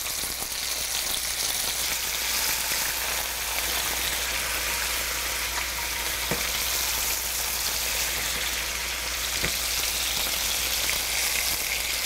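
Skin-on chicken thigh pieces sizzling in hot oil in a frying pan, a steady hiss, as they are turned over with metal tongs. A couple of faint clicks come partway through.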